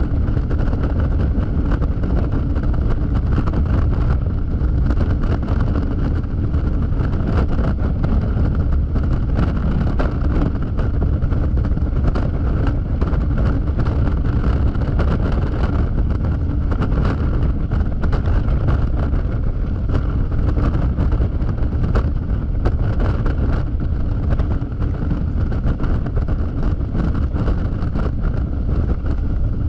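Steady wind rushing and buffeting on the microphone over the low drone of a Yamaha XMAX scooter's single-cylinder engine, cruising at highway speed.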